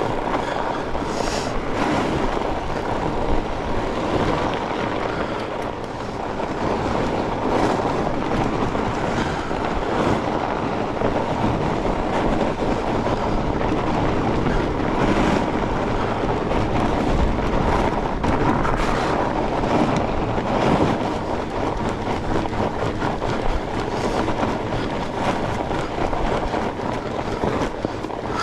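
Fat bike riding along a trail: a steady rumble of the wide tyres rolling over the ground, with wind buffeting the microphone and scattered short knocks and rattles from the bike.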